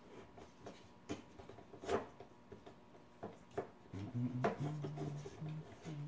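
Small tabletop tripod being handled on a wooden table: scattered clicks and light knocks as its legs and head are moved. From about two-thirds through, a low hum that steps between a few pitches runs underneath.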